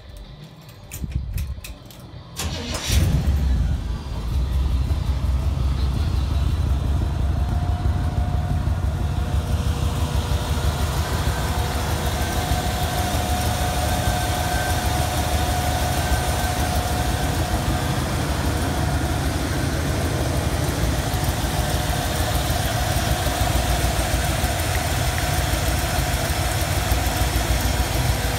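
1953 Chevrolet panel truck's inline-six engine being started: it cranks with rapid clicking for a couple of seconds, catches with a surge about three seconds in, then settles to a steady idle.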